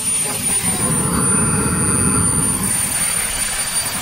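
KingTech 160 model jet turbine engines running steadily: a high, steady whine over a broad rush of exhaust, with a second, fainter whistle joining about a second in.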